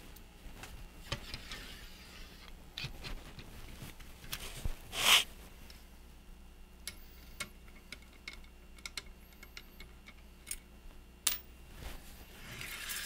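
Cleaning rod pushing a dry patch through a rifle barrel: quiet scattered clicks and taps of the rod and jag, with one short, louder brushing scrape about five seconds in, as the patch comes out of the muzzle. A soft sliding rustle near the end as the rod is drawn back.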